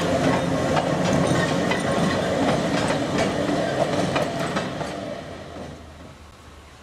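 Manx Electric Railway tramcar and trailer running over pointwork, its wheels clicking and rattling over the rail joints with a steady hum from the car. The sound fades after about five seconds as it moves away.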